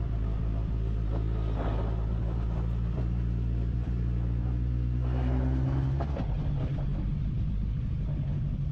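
Suzuki Bandit 1200's inline-four engine running steadily at low revs, its pitch rising a little about six seconds in.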